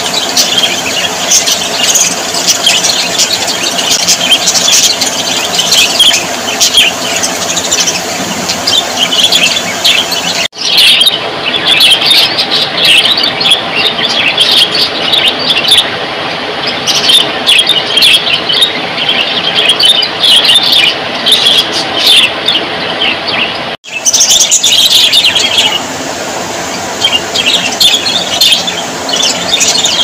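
A flock of budgerigars chattering and chirping constantly and loudly, many birds calling over one another in a dense mix of short squeaky calls. The sound breaks off for an instant twice, about a third of the way in and again near the end.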